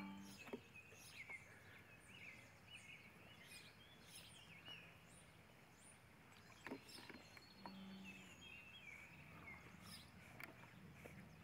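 Faint outdoor ambience of small birds chirping: short high calls, some rising or falling, scattered throughout, with a few sharp ticks.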